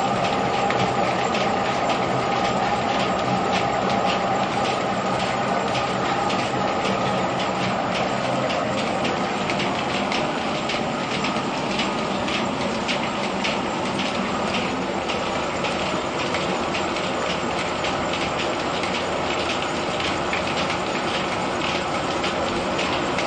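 Threshing machine in a mill running steadily, a constant machine hum under a fast, dense rattling clatter as the poured-in grain is worked.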